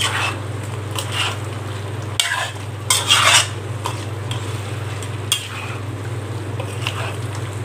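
Mutton pieces being stirred and sautéed on full flame in a kadai with a metal slotted spatula: the spatula scrapes and knocks against the pan several times, loudest about three seconds in. The meat sizzles underneath, and a steady low hum runs throughout.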